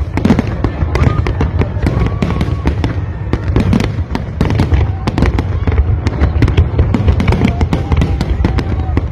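Large fireworks display: a rapid, continuous barrage of pops and crackling bangs, several per second, over a steady low rumble of bursting shells.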